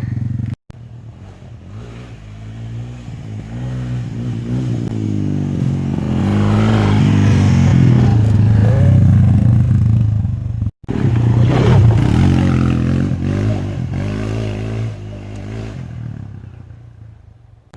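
Quad (ATV) engine running under throttle, revving up and down as it rides: it grows steadily louder to a peak in the middle, then fades away toward the end.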